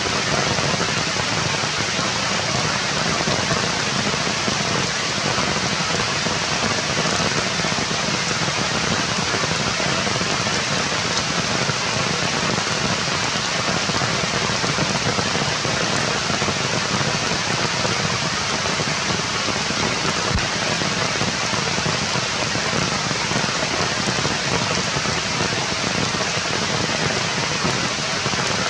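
Steady rain falling on forest foliage: an even, continuous hiss that does not let up.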